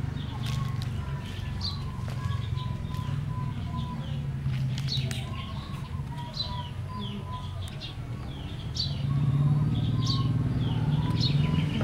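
Small birds chirping, short high calls repeating about once a second, over a low rumble that grows louder about nine seconds in.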